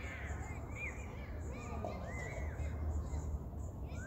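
Birds calling: a quick series of short rising-and-falling calls, then one longer call about two seconds in, over a steady low rumble.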